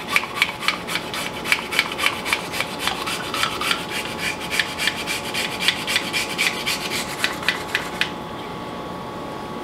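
Garlic cloves being grated by hand, a quick run of rasping strokes about five a second that stops abruptly about eight seconds in.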